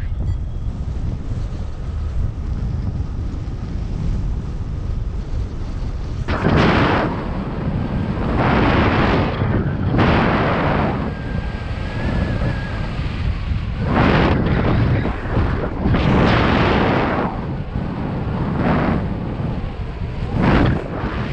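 Strong wind buffeting the microphone during a paraglider flight: a constant low rumble with louder gusts surging every couple of seconds.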